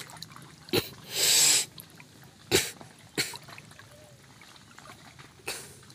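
A large swamp turtle hisses once, a short forceful breathy hiss about a second in. A few sharp knocks and clicks fall around it.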